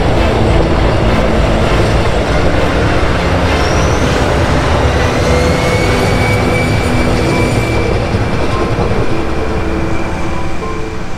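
A passenger train passing close by on the railway: a loud, steady rumble of wheels on rail. About five seconds in, a thin high squeal sets in, holds for a few seconds, then fades.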